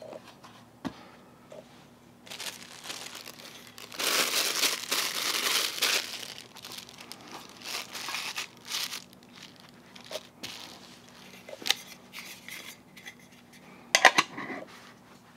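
Plastic packaging crinkling and rustling as a wrapped watch is handled and pulled out of its hexagonal case, loudest about four to six seconds in. Scattered light clicks follow, then a sharp clack near the end.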